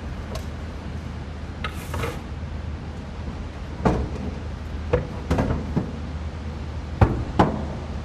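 A steady low hum with scattered, irregular sharp knocks and clicks.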